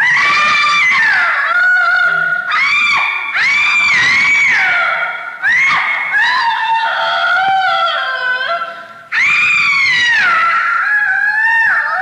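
High wailing cries from a Halloween sound-effects recording, several overlapping, each rising, holding and falling over about a second, one after another with a brief lull about nine seconds in.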